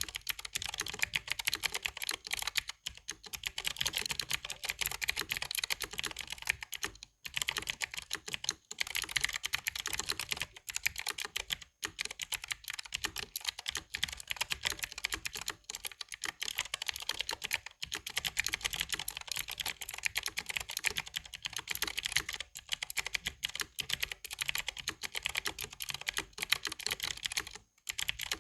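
Fast continuous typing on a mechanical keyboard with clicky blue switches, a dense crisp clatter of key clicks broken by a few brief pauses.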